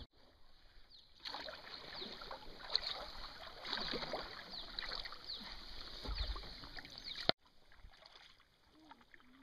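Kayak paddle strokes, the blades dipping and splashing with water dripping off them, for several seconds; the sound cuts off suddenly near the end to a much quieter background.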